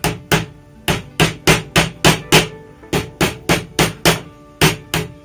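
Small cross-pein hammer tapping down the cut wire tag ends of a homemade wire hose clamp on a hose. There are about fifteen quick sharp taps in short runs of three or four a second, with short pauses between the runs and a brief metallic ring after each.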